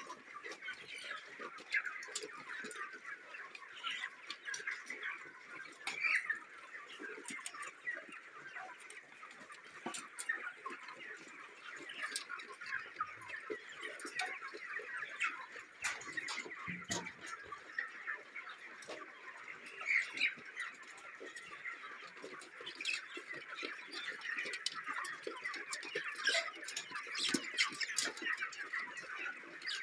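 A large flock of broiler chickens calling continuously, many overlapping peeps and clucks forming a steady chatter.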